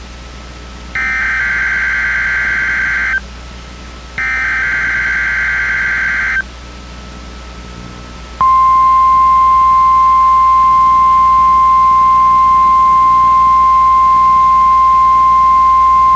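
NOAA Weather Radio test alert. Two buzzy bursts of the digital SAME header, each about two seconds long and a second apart, then the steady 1050 Hz warning alarm tone, louder than the bursts, starting about eight seconds in.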